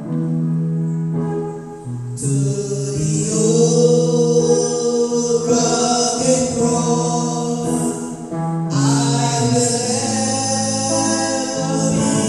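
Gospel music: singing in long held notes over instrumental accompaniment.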